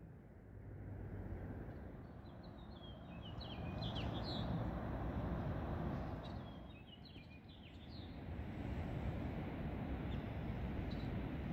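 A songbird sings two short phrases of quick chirping notes that step downward in pitch, over a low outdoor rumble that swells and fades.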